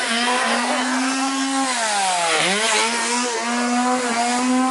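Two-stroke chainsaw engine running at high revs. About halfway through it slows with a falling pitch and then revs back up.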